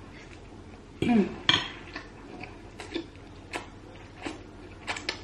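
A metal fork clinking and scraping against a ceramic bowl and plate while eating, with a short hum about a second in, then scattered sharp clicks and mouth sounds of chewing.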